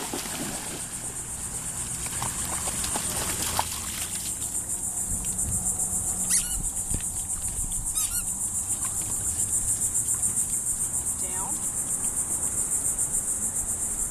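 Insects chirring in a steady high-pitched chorus with a fast pulsing rhythm. A dog splashes through shallow water near the start.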